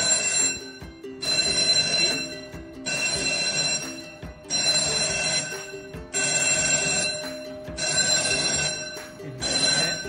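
Electric fire alarm bell ringing in repeated bursts of about a second with short gaps between them. It is driven by the fire alarm panel on 24 V battery backup alone, which shows the bell still works without mains supply.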